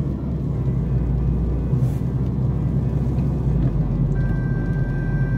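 Steady low rumble of a car driving on a highway, heard from inside the cabin: road and tyre noise with engine drone. A faint steady high tone joins about four seconds in.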